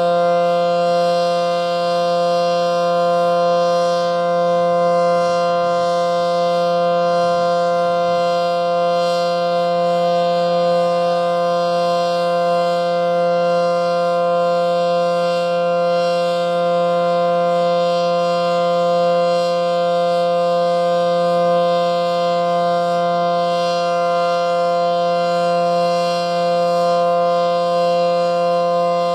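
ACA Allertor 125 civil defense siren with 9/12 ports sounding a steady alert tone, a chord of several held pitches that neither rises nor falls. Its rotation is not working, so the sound holds an even loudness instead of sweeping. The siren is still reverse-wired, which the owner counts as a fault.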